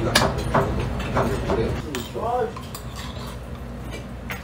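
A metal spoon clinking and scraping against a heavy pot as the last of the soup is scooped from the tilted bowl, with a few sharp clinks spread through.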